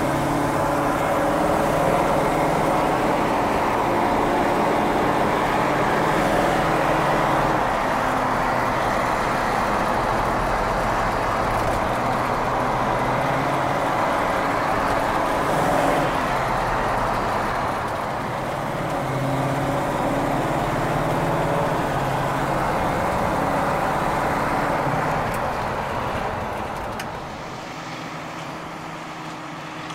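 1970 Chevrolet El Camino SS396's 396 cubic-inch big-block V8, with Hooker headers and Flowmaster mufflers, running as the car drives, with road noise, heard from inside the cab. Near the end it grows quieter.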